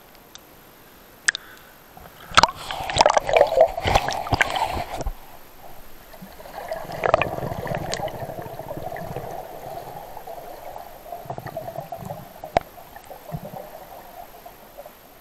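Water splashing against the camera as a swimmer goes under, about two to five seconds in, then steady bubbling underwater as he breathes out through his mask, with a couple of sharp knocks.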